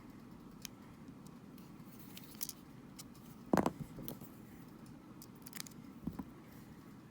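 Small clicks and taps of a tiny screwdriver and screw on a Joy-Con controller's plastic shell, with one louder knock about halfway through.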